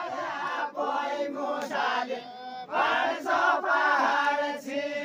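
Men singing a Deuda folk song together in unison, in short held phrases with brief breaks between them.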